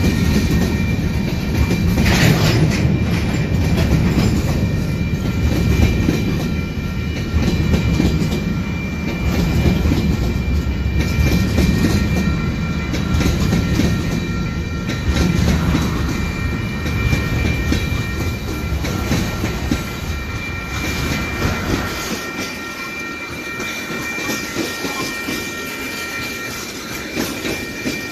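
A freight train's covered hoppers and boxcars rolling past, wheels clacking over the rail joints over a steady rumble, with thin high steady tones above it. The low rumble drops off about six seconds before the end.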